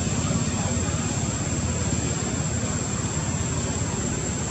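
Steady low rumbling background noise with a constant high-pitched whine above it, unchanging throughout.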